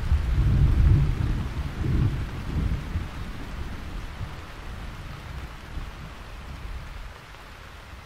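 Rain falling as a steady hiss under a deep rolling rumble of thunder. The rumble is strongest about one and two seconds in, then dies away as the whole sound fades steadily lower.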